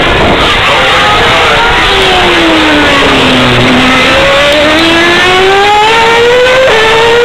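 Formula One car's 2.4-litre V8 engine, loud. Its note falls steadily as the car slows for a corner, bottoming out about three and a half seconds in, then climbs again as it accelerates away, with a sudden step in pitch near the end.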